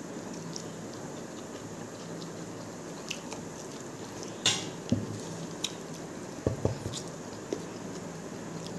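Eating rice by hand: chewing and mouth smacks, with fingers mixing rice on a plate. A few sharp clicks and smacks stand out about halfway through, over steady background noise.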